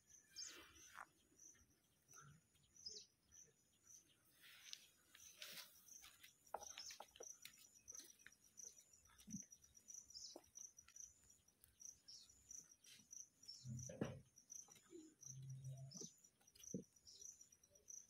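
Faint, scattered clicks and soft knocks of rose-ringed parakeets pecking and biting at corn kernels and cucumber pieces, over a faint, evenly repeating high chirping like a cricket's.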